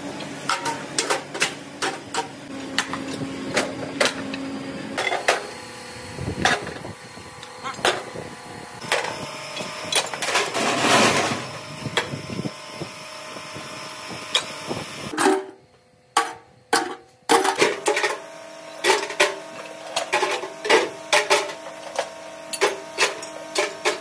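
Metalworking in a workshop: irregular clanks and taps of tools on metal. About halfway through there are a couple of seconds of rushing noise, and the sound briefly cuts out a few times soon after.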